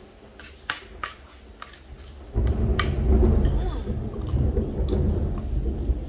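Thunder rumbling, coming in suddenly a couple of seconds in and rolling on steadily. Small clicks of spoons and eating sound throughout.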